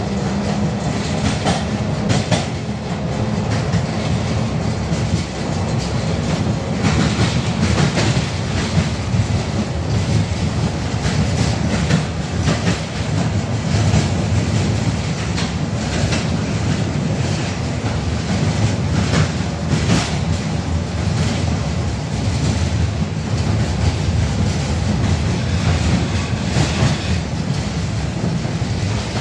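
A 71-605A tram running along the line, heard from inside the passenger car: a steady low rumble of the wheels and running gear, with sharp knocks from the track scattered throughout.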